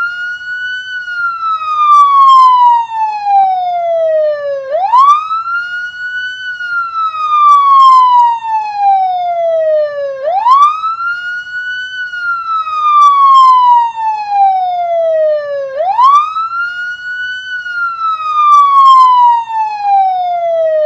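Police car siren sounding a wail: the pitch rises quickly, holds briefly at the top, then falls slowly over several seconds, the cycle repeating about every five and a half seconds.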